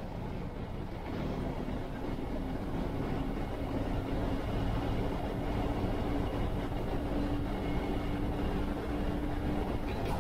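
Cabin noise of a moving bus: steady engine drone and road rumble, with an even low hum that comes in about a second in.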